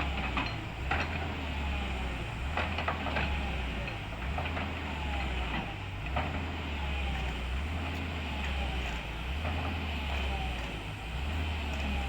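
Diesel engine of a Tata Hitachi earthmoving machine running under varying load, its low hum swelling and easing every second or two, with scattered sharp knocks and clanks from the machine at work.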